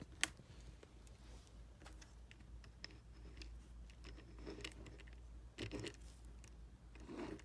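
Light clicks and taps from handling a small diecast toy car, with one sharp click just after the start.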